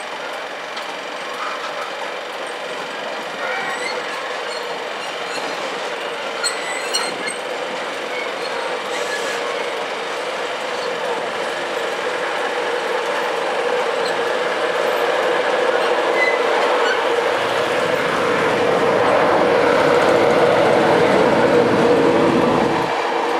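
Cement tank wagons of a freight train rolling past on steel rails, a steady rolling noise that grows louder, with a deep rumble added in the last few seconds. It drops off suddenly near the end as the tail of the train clears.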